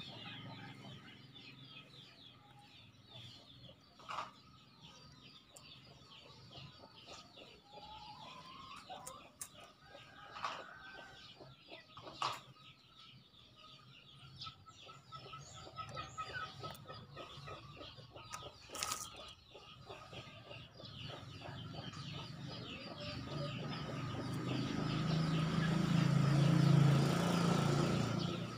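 Chickens and junglefowl giving occasional short clucks and calls over a faint, steady chirring background. Over the last several seconds a low rumbling noise swells up and is the loudest sound, peaking just before the end.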